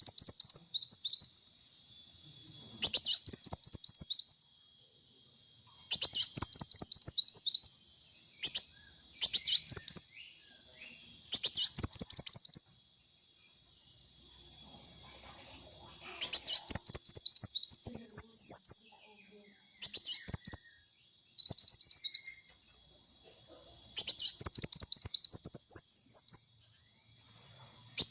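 A sunbird singing vigorously: repeated bursts of fast, high, chirping trills, each about a second long and a few seconds apart. A steady high-pitched whine runs underneath.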